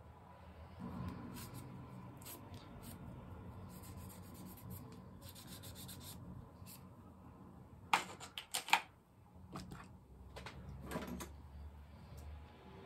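Paper being handled and rubbed down by hand on a collage journal page. It makes a steady dry rustling, with a quick cluster of sharp crackles about eight seconds in and a few more near eleven seconds.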